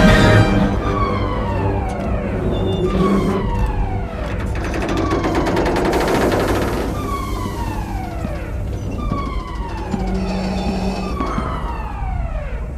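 Spaceship alarm sounding: a falling tone repeating about once a second over a low rumble. A harsh crackling burst comes in the middle for a couple of seconds.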